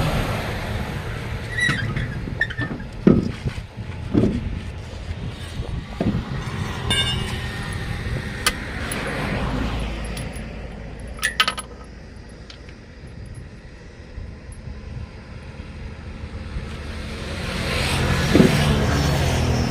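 Road traffic going by, swelling up twice as vehicles pass, over a steady low rumble. Scattered sharp metal clinks and knocks, the kind made by tyre-changing tools, come mostly in the first half.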